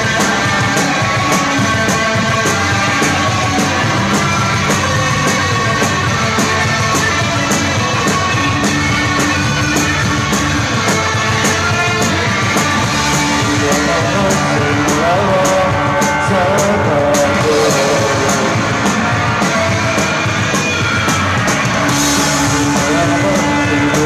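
Live rock band playing loud, with electric guitar over a steady drum beat and cymbal hits.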